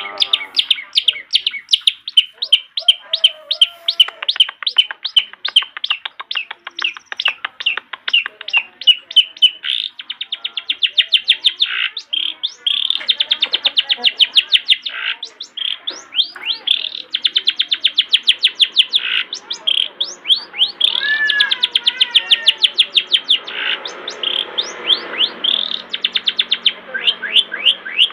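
Long-tailed shrike (cendet) singing vigorously: long runs of sharp, rapidly repeated chattering notes, about five a second, with denser bursts and warbled, gliding notes mixed in during the second half.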